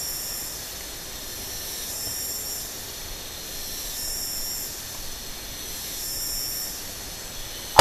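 Insects buzzing high and steady, swelling and fading about every two seconds, over a low hiss. At the very end comes one sharp, loud crack: the air rifle firing.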